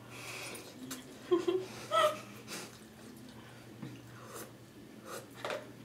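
People eating very hot ramen noodles as fast as they can, with sharp wheezy breaths drawn through the mouth against the heat. Two short pitched vocal sounds stand out about a second and a half and two seconds in.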